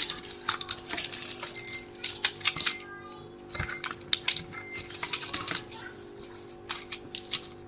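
Small hard objects clicking and clattering as they are handled, in many quick irregular taps, over a steady hum.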